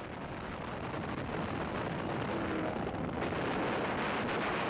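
Car travelling at highway speed: a steady rush of wind and tyre noise that grows gradually louder.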